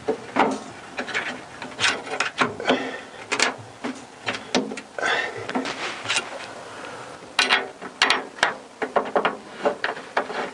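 Irregular metal clicks, knocks and short scrapes of hand tools and a steel exhaust bracket being worked into place and bolted on.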